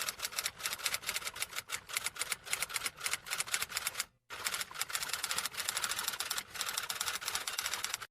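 Rapid typing: a fast, uneven run of sharp key clicks, with a brief pause about halfway through.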